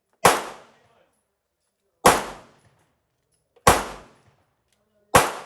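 Four single pistol shots in slow, deliberate fire, each a sharp crack with a short ringing tail, about one and a half to two seconds apart.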